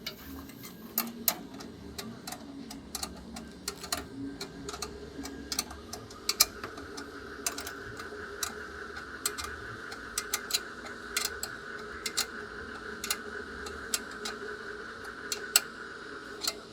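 Irregular sharp clicks and taps, a few a second, over a steady hum that grows stronger about six seconds in.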